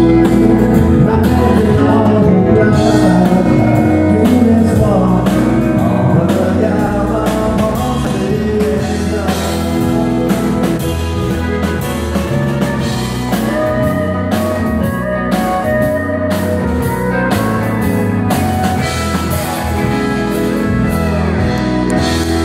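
Live country band playing amplified music with a steady drum beat: acoustic and electric guitars, pedal steel guitar and keyboard, with singing at times.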